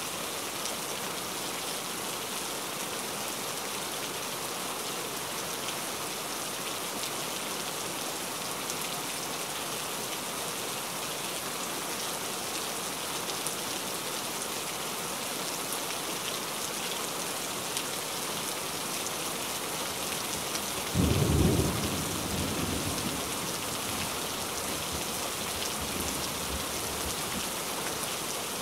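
Steady rain, with one loud, low clap of thunder about three-quarters of the way through that rumbles away over a couple of seconds.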